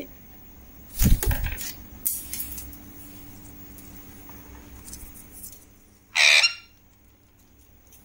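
A knock and rustle about a second in. About six seconds in, an Alexandrine parakeet gives one short, harsh squawk.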